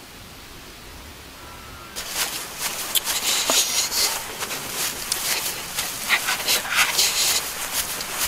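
Footsteps crunching and rustling through dry grass and brush: a dense run of crackles and snaps that begins about two seconds in, after a faint steady hiss of open air.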